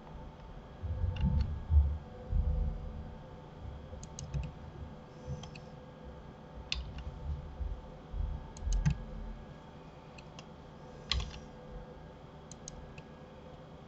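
Computer mouse and keyboard clicks, scattered and irregular, mixed with dull low thumps on the desk, loudest about a second or two in, over a faint steady hum.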